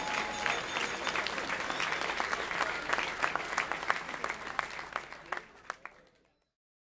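Crowd applauding, a dense patter of many hands clapping that fades out about six seconds in.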